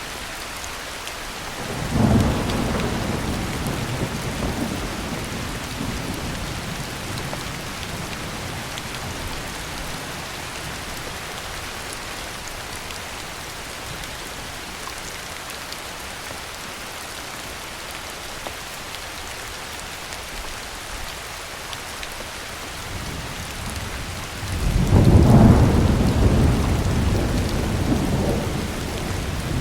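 Heavy rain falling steadily, with two rolls of thunder. The first breaks in sharply about two seconds in and fades over several seconds; a louder, deeper rumble builds near the end.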